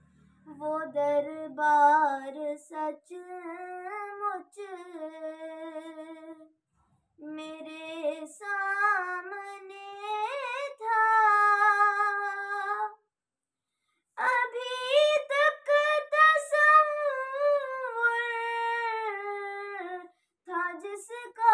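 A girl singing an Urdu naat unaccompanied, in long drawn-out melodic phrases with short pauses between them.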